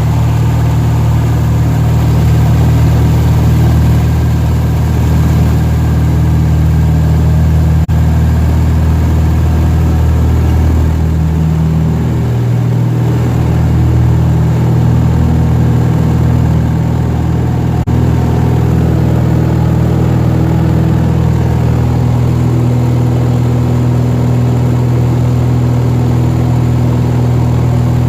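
Cessna 170's piston engine and propeller running with a loud, steady drone, the engine note shifting briefly about midway as the power changes, then settling again.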